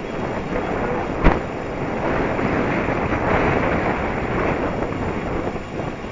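Wind rushing over the microphone while the electric-converted bicycle is ridden along, with one sharp click about a second in.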